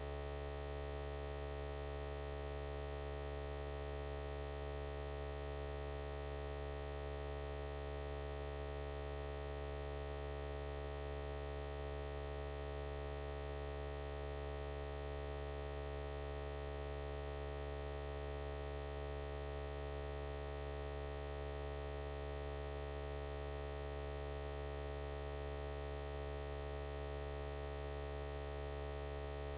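A steady electronic hum made of several constant tones, a deep drone with a higher tone above it, unchanging throughout.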